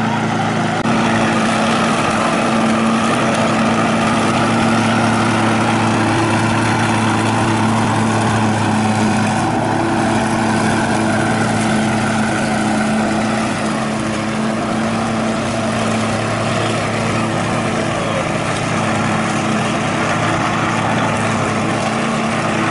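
Walk-behind petrol lawn mower running steadily as it is pushed across the lawn, cutting grass.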